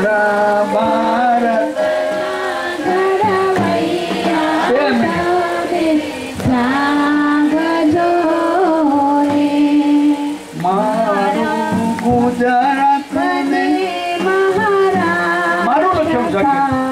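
A man singing a slow Gujarati devotional-patriotic song into a microphone, drawing out long, wavering notes.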